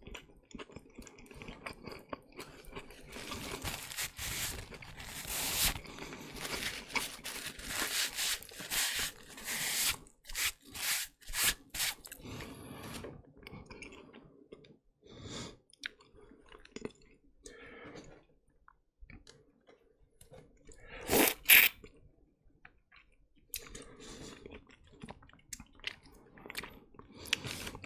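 Close-miked chewing and crunching of fast food, with wet mouth sounds coming in irregular bursts. They are dense for the first half and then thin out, with one louder burst about three quarters of the way through.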